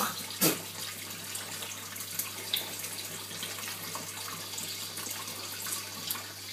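Kitchen tap running steadily into a sink as a glass is held under it, with a sharp knock about half a second in and a low steady hum underneath.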